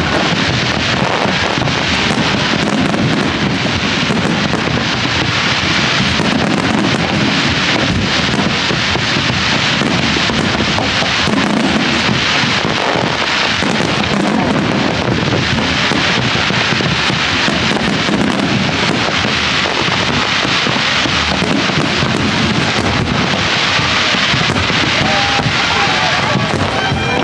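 Fireworks bursting and crackling without pause in a dense barrage, mixed with the chatter of a crowd and wind buffeting the microphone.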